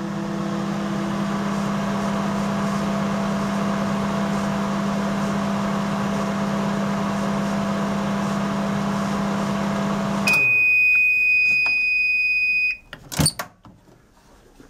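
A 1980 Sharp Carousel II microwave oven running on high with a steady hum, its repaired magnetron heating a mug of water. About ten seconds in the hum stops and one long, steady beep sounds for a couple of seconds, followed by a sharp click as the door is opened.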